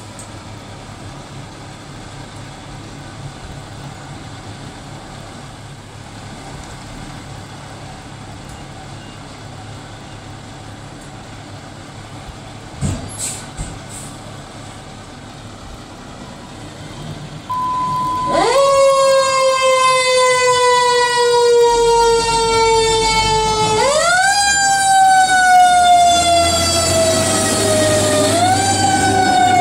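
Fire engine siren comes on a little past halfway, winding up fast and then sliding slowly down in pitch, and is wound up again twice, loud over the low rumble of the truck's engine. Before it there is only a steady low background noise with one short clatter.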